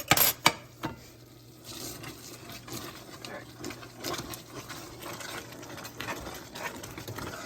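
A few sharp clinks of a metal utensil against the pan, then the cornstarch-thickened gravy bubbling at the boil with a steady crackle of small pops.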